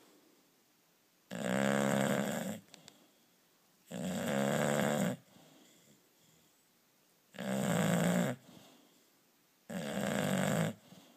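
Snoring in a steady rhythm: four snores, each about a second long, coming about every two and a half seconds.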